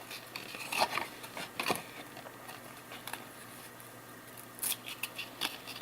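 Trading cards stuck together being pried apart by hand: scattered short scrapes and clicks of card stock.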